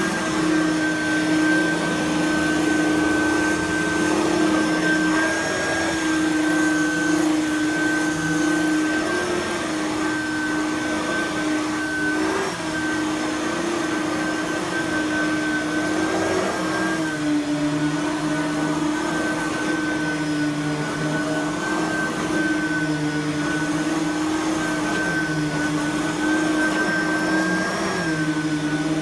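Simplicity Freedom lightweight direct-air upright vacuum running steadily while vacuuming carpet, its motor pitch dipping and rising slightly every few seconds.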